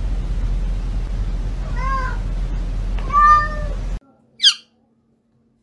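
A domestic cat meowing twice over a steady low hum: a short meow, then a longer, louder one. The sound then cuts off suddenly, followed by one brief high-pitched squeak.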